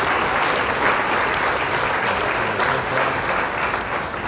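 Steady, loud applause-like clapping noise that dies away near the end.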